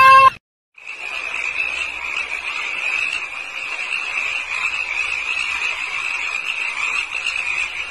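A cat's yowl cuts off abruptly. After a short silence, a steady high-pitched night chorus of calling animals starts up and runs on as one unbroken shrill trill.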